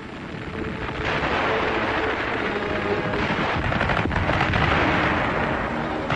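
Din of battle: a dense, continuous wash of gunfire and explosions that builds during the first second, with a sharp shot or blast about four seconds in, and eases near the end.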